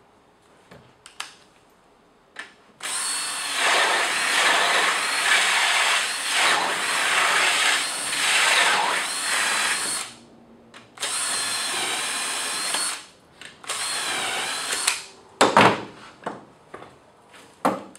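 Cordless drill driving a Blum Ecodrill hinge-boring jig, its 35 mm and two 8 mm bits cutting hinge holes in plywood. One long run of about seven seconds, the motor's pitch dipping and recovering under load, then two shorter runs after brief pauses. A few sharp knocks near the end.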